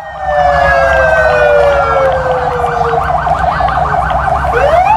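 Emergency vehicle sirens sounding together: a wail sliding slowly down in pitch, joined by a fast repeating yelp, then a wail sweeping sharply up again near the end, over a steady low rumble.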